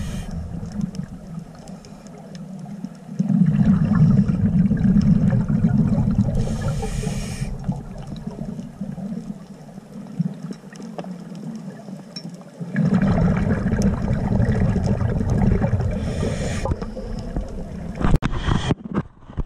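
Scuba diver breathing through a regulator underwater: two long exhalations rumbling out as bubbles, each ending in a short hissing inhale, with quieter water noise between them. A few sharp clicks and crackles near the end.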